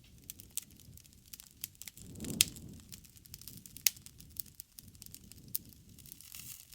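Wood fire crackling, with dense irregular pops and snaps over a low rumble of flame. Two sharp, loud pops come about two and a half and four seconds in, and the low rumble swells briefly around the first one.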